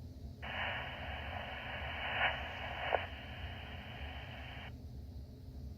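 Scanner audio of a fire-department radio channel: a transmission opens about half a second in carrying only hiss and static, with no clear voice and a couple of faint clicks, and cuts off after about four seconds, leaving a low steady hum.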